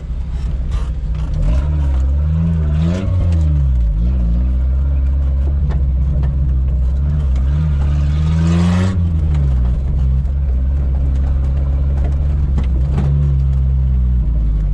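Suzuki Samurai 4x4's engine working off-road, its pitch rising and falling as it is revved and eased off. The strongest rev comes about eight to nine seconds in, with a brief rushing noise over it.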